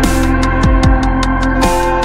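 Electronic background music: held chords over a quick, even ticking beat, with bass notes that slide down in pitch a few times.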